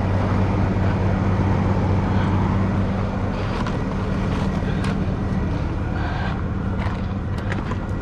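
Vehicle engine idling steadily, with a deeper hum that drops away about three seconds in, and a few light clicks near the end.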